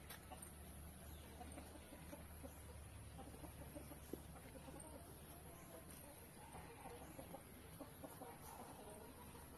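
Faint chickens clucking over a steady low hum, with short calls scattered through the second half.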